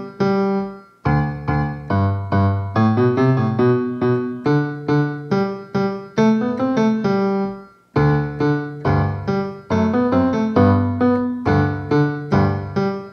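Piano music: a steady run of struck notes, stopping briefly about a second in and again near eight seconds before starting up again.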